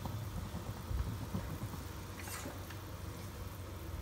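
Steady low hum of kitchen background noise, with a soft thump about a second in and a faint rustle a little after two seconds.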